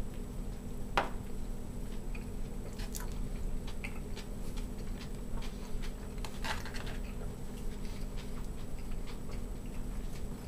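A person chewing a bite of hot dog in a bun, with a few soft clicks and knocks, among them a paper plate set down on the counter; a steady low hum underneath.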